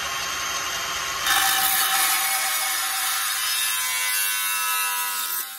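Cordless angle grinder with a thin 1 mm metal cut-off disc cutting along the steel edge of an old handsaw to strip off its teeth. The whine gets louder and rougher about a second in as the disc bites into the steel, its pitch sinking slowly under the load, and it stops near the end.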